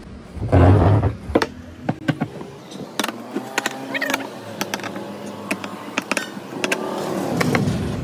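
Hand tools knocking and clicking against metal washing machine gearbox parts while a freshly fitted part is adjusted into place: a heavier scraping thud about half a second in, then a run of sharp separate clicks and knocks.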